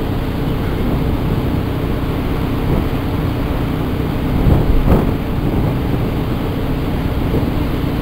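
Strong wind buffeting the microphone, a steady low rumble that swells with a gust about five seconds in.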